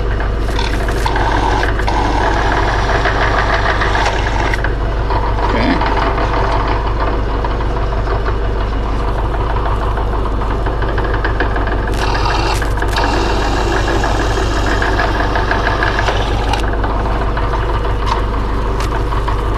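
Benchtop drill press motor running steadily while a small twist bit drills through thin sheet-metal plate, with a few brief scratchy bursts as the bit cuts.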